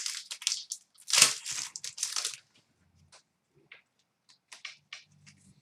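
Foil trading-card pack wrapper being torn open and crinkled, with a dense burst of crackling loudest about a second in, then a few lighter rustles and clicks.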